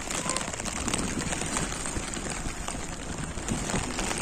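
Rain falling on a fishing boat at sea, with wind: a steady hiss flecked with many small drop ticks.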